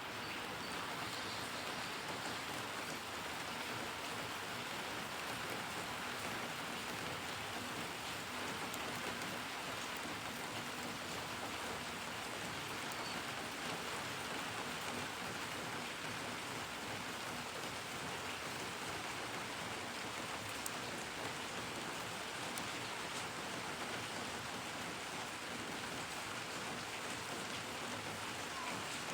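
Steady rainfall with drops pattering on a surface, an even hiss that holds at the same level throughout.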